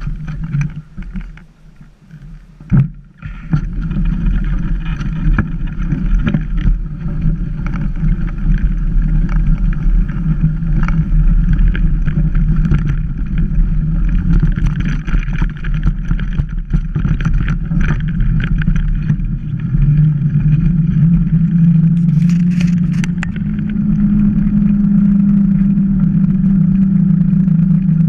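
Mountain bike riding over gravel and dirt road: a steady rush of wind on the action-camera microphone and tyre rumble, with scattered knocks and rattles over bumps. It is patchy for the first few seconds, then loud and continuous as the bike gathers speed. A steady hum comes in about two-thirds of the way through and rises a little in pitch a few seconds later.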